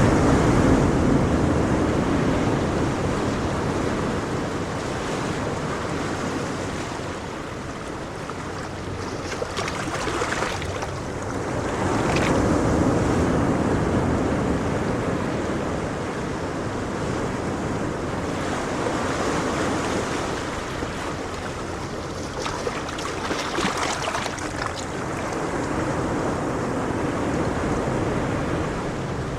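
Ocean surf washing in and out, a steady rush of water that swells and fades in slow surges about every ten to twelve seconds.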